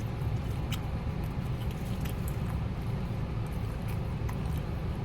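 Chewing on fried chicken, with faint scattered clicks of biting and chewing, over a steady low rumble.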